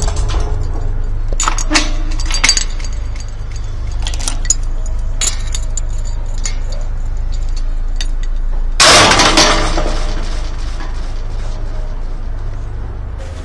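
A run of sharp clicks and clinks, then a loud, noisy crash-like burst about nine seconds in, over a steady low rumble.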